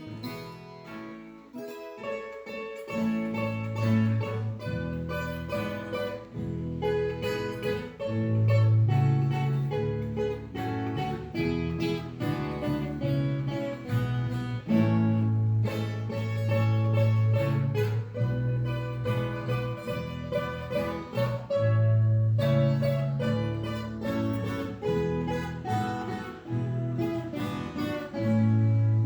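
Background music: acoustic guitar playing with a steady bass line, a bowed string instrument joining in at times.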